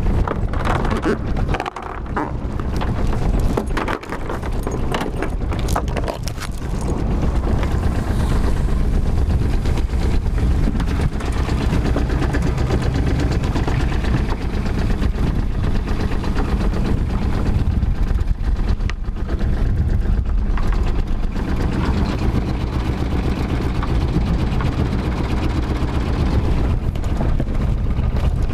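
Old single-cylinder-style diesel inboard of a wooden clinker boat running steadily with a low, even beat, with wind buffeting the microphone. Several knocks in the first few seconds as the anchor goes over the bow and its rope is handled.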